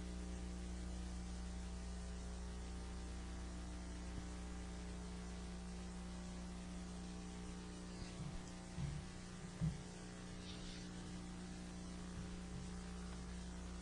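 Steady electrical mains hum on the meeting room's microphone and sound system, with a faint hiss. There are a few faint low thumps about two-thirds of the way through.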